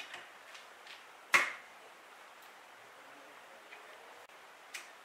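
Steel parts of a Swagman E-Spec hitch bike rack knocking together as the upright post is fitted: one sharp knock about a second in that rings briefly, with a few light clicks around it.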